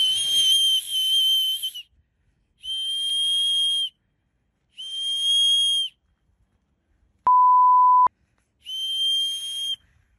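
Four long, steady, shrill blasts on a hand-blown whistle, breathy at the edges, separated by short silences. Between the third and fourth blasts comes a flat electronic bleep lasting just under a second.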